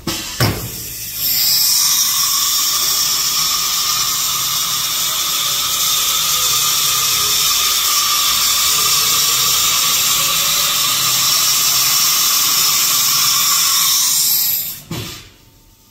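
Figtek CNC router's automatic tool changer working during a tool change: a sharp click, then a loud steady hiss with a high whine for about thirteen seconds, cutting off suddenly near the end.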